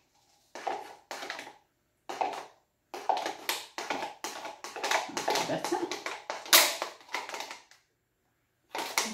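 Plastic paint cup crackling and crunching as it is handled, in a string of short bursts that stops briefly near the end; the cup is cracked.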